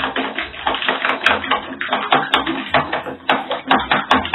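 Raw eggs being beaten by hand in a plastic bowl: a utensil clicking and tapping quickly against the bowl's sides, about four or five strokes a second.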